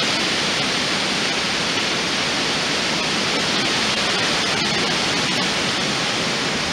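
Strong storm wind blowing through the forest canopy: a steady rushing of leaves and branches.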